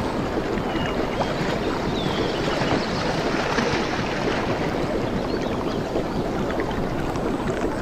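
Water sloshing and lapping steadily, with small birds chirping here and there above it.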